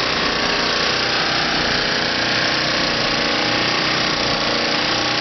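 A small 1,000-watt portable generator running steadily, together with the electric motor and belt-driven flywheel of an early-1900s Butler pump jack working a well's hand pump.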